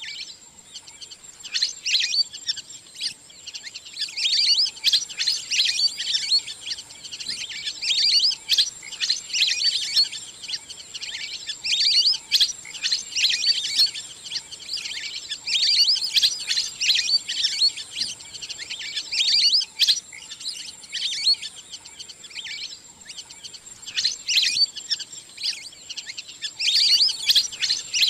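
Wild duck calls: a flock's rapid, high twittering whistles in repeated bouts every second or two, over a steady faint high-pitched tone.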